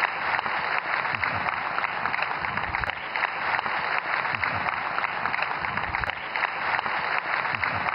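Large audience applauding steadily: a dense, even patter of many hands clapping.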